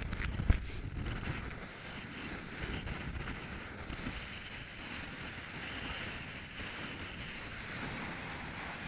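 Inflatable boat running through rough sea in strong wind: a steady rush of wind on the microphone and water against the hull. There are a few sharp knocks in the first second, the loudest about half a second in.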